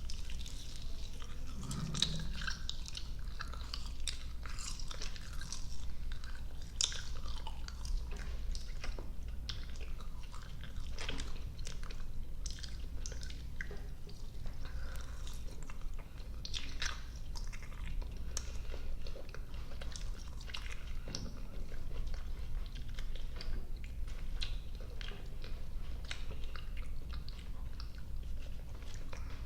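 Close-miked chewing and biting of soft, sticky candy: irregular wet mouth smacks and clicks, over a steady low hum.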